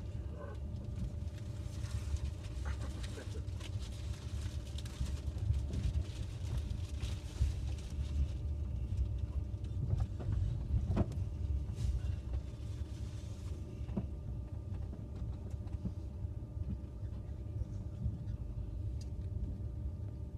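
Electric passenger train running, heard from inside the carriage: a steady low rumble with a faint constant hum, and a couple of light knocks about eleven and fourteen seconds in.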